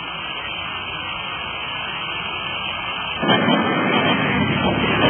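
A steady hiss, then about three seconds in a louder rushing of running water sets in.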